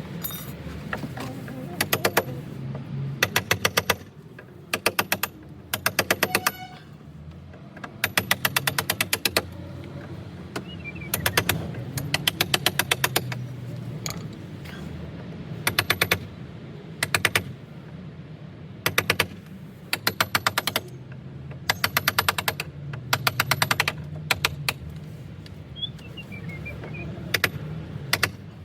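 Hammer striking a chisel to cut a recess in a wooden door frame for a lock keep: short bursts of rapid, sharp taps, about a dozen or more a second, repeated every second or two with brief pauses between.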